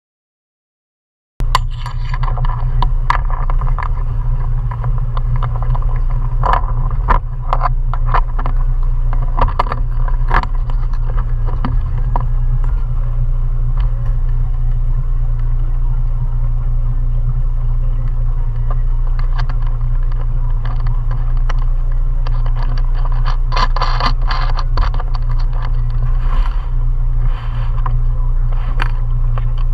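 Mariner 20 hp outboard motor running steadily as the cruiser travels along, a low hum with frequent small rattles and knocks over it. It cuts in suddenly out of silence about a second and a half in.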